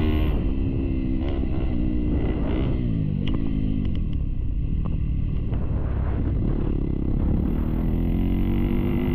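Dirt bike engine running under riding, its pitch repeatedly dropping and climbing as the throttle is rolled off and on and the gears change.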